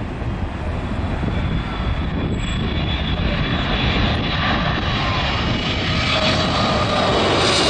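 Boeing 777-300ER's twin GE90 turbofan engines at approach power, growing steadily louder as the jet comes in low overhead on final approach. From about four seconds in, a high whine slides down in pitch as it passes.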